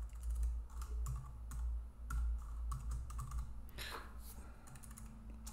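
Computer keyboard typing: a run of irregular key clicks as text is deleted and retyped, over a steady low hum.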